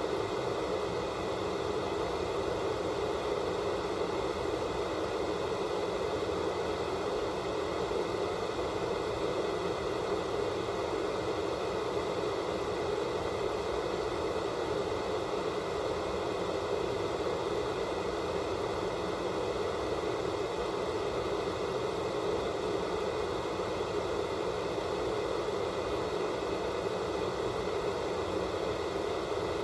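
Analog television static: the steady, even hiss of a TV tuned to no signal.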